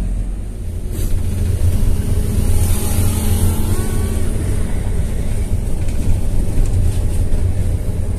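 Coach bus under way, heard from inside the cabin at the front: a steady low engine rumble with road noise.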